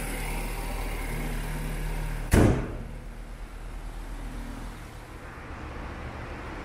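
A BMW N20 turbocharged four-cylinder engine idling with a steady low hum. A car door is slammed shut once, about two seconds in, and the engine sounds fainter after it.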